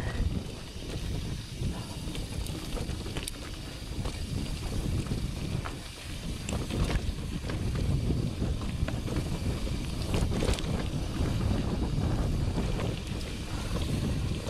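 Full-suspension mountain bike riding downhill over a rough, rocky dirt trail: wind buffets the microphone with a steady rumble, and scattered clicks and rattles come from the bike bouncing over stones.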